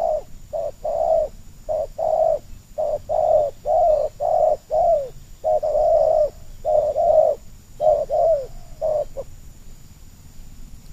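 Spotted doves cooing in a rapid run of short, arched notes, about two a second with a few longer ones, stopping about nine seconds in.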